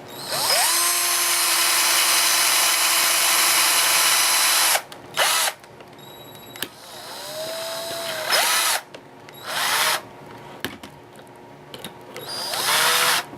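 Electric drill with a small bit drilling into a steel food can. The motor winds up and runs for about four and a half seconds, then starts and stops in several short bursts. Each burst winds up and back down.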